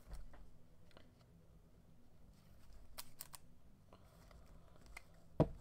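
Plastic card sleeve and rigid top loader being handled as a trading card is slid in: faint rustling with scattered light clicks, a quick run of sharp clicks about three seconds in, and a louder single tap near the end.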